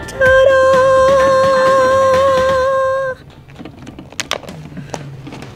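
A voice holding one long hummed note, slightly wavering, for about three seconds, over quiet background music.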